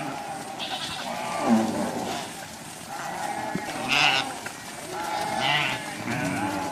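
Cattle calling: several lowing, bleat-like calls one after another, some bending in pitch.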